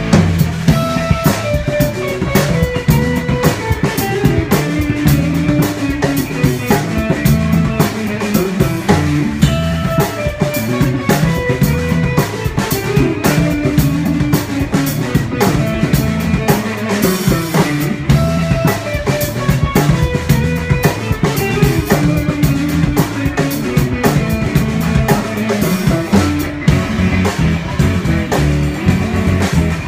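Live band playing an instrumental passage: drum kit, electric guitar and plucked upright bass.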